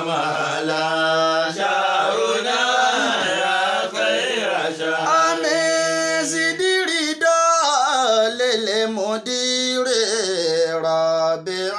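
A man singing an Arabic nasheed that welcomes Ramadan, drawing out long, wavering held notes that slide between pitches.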